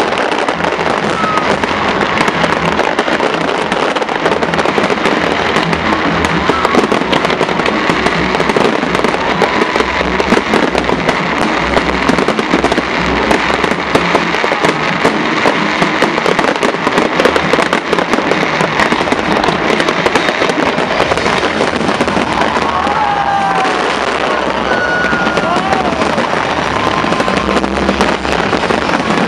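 Large professional fireworks display firing without let-up: dense crackling and rapid bangs from many shells at once, with no pauses.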